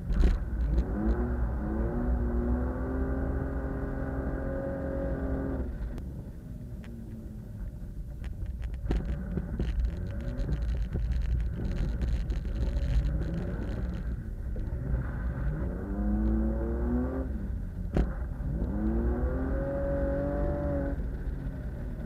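BMW E36 328i's straight-six revving hard in three pulls, its pitch climbing for a few seconds and then dropping off sharply as the throttle is lifted, over steady wind and road rumble. A sharp knock comes near the start and another about three-quarters of the way through.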